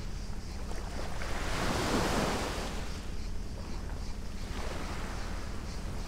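Sea water washing in small waves, with one louder swell of surf about two seconds in and a weaker one later, over a low steady hum.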